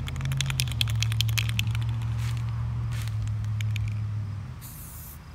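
Spray paint can being shaken, its mixing ball rattling in quick clicks, with a short spray hiss near the end. A steady low hum runs underneath and stops shortly before the hiss.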